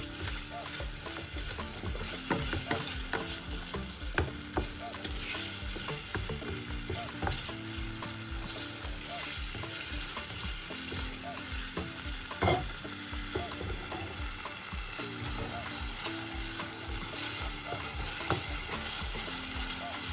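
Wooden spatula stirring and scraping thick tomato purée as it fries and sizzles in an aluminium pot, with scattered clicks of the spatula against the pan and one louder knock about twelve seconds in.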